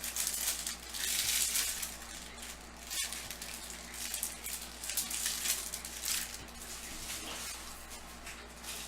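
Trading-card packs and cards being handled: foil wrappers crinkling and cards rustling and sliding in several short bursts, with a single sharp click about three seconds in.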